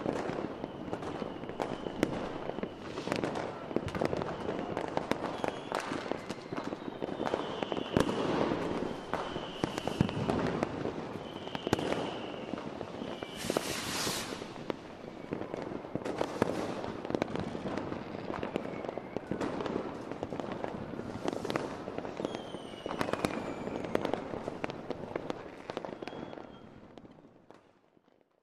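Fireworks going off: a dense string of bangs and crackles with short whistles, and a brief rushing hiss about halfway through. The sound fades out near the end.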